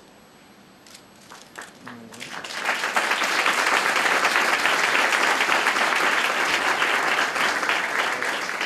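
Audience applauding: the clapping swells in a couple of seconds in and goes on steadily, easing slightly near the end.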